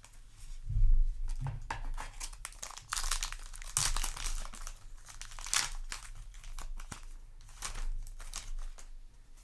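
A foil trading-card booster pack wrapper being crinkled and torn open, an irregular crackling with a few soft handling thumps.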